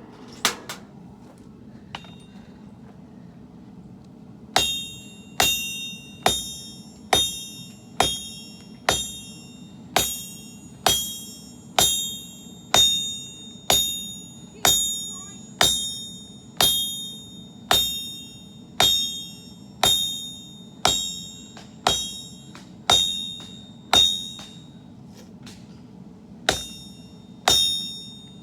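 Hammer blows on a sword blade over an anvil, straightening and shaping the forged metal: a steady run of about twenty ringing metallic strikes at roughly one a second, each leaving a brief high ring, with a short pause before two last blows.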